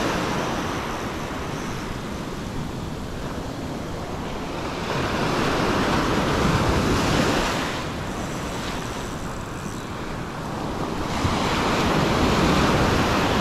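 Ocean surf breaking and washing up the sand at close range. The rush swells and fades about three times, every five to six seconds, with wind blowing on the microphone.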